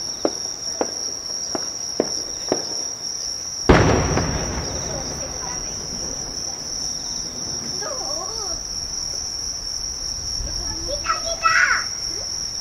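Large aerial firework shell bursting: one heavy boom about four seconds in, rolling away over the next few seconds, heard over the steady high chirring of crickets.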